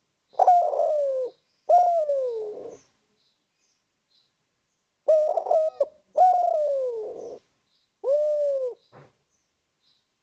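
Spotted dove (tekukur) calling: two falling coos, a pause of about two seconds, then three more coos ending in a short clipped note.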